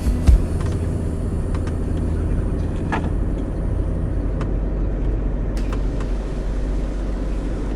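Camper van driving: a steady low rumble of engine and road noise, with a sharp thump just after the start and a few light clicks.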